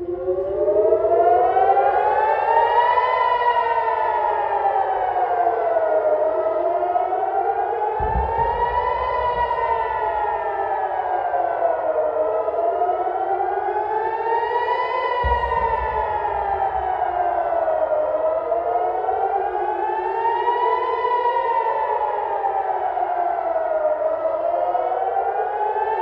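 Civil defence air-raid siren sounding a rocket alert, the warning to go to the shelter. It starts at once and wails steadily up and down, one full rise and fall about every six seconds. Two dull low thumps come through, about eight seconds in and again about fifteen seconds in.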